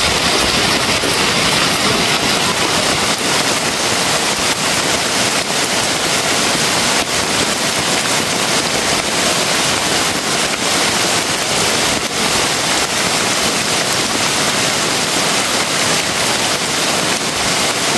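Heavy rain pouring steadily on the bamboo forest and a leaf-thatched shelter roof: a dense, even hiss, with a few sharper drop taps.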